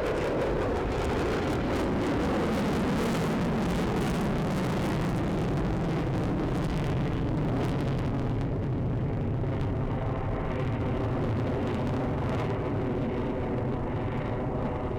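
Jet noise from an F-35A's single F135 afterburning turbofan as it passes. The pitch drops over the first few seconds, then it settles into a steady low rumble as the jet moves away.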